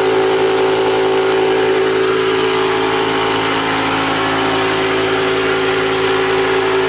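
Yong Heng 4500 psi high-pressure air compressor running steadily as it fills a PCP air tank: an even mechanical drone with a strong steady hum and a hiss over it.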